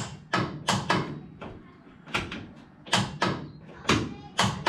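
A series of sharp knocks and clunks, several coming in quick pairs, spaced unevenly.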